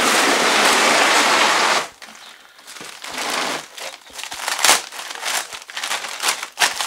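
Clear plastic wrapping rustling and crinkling as it is pulled and handled around a transmission. It starts with a loud, dense rustle for about two seconds, then breaks into quieter scattered crinkles and crackles.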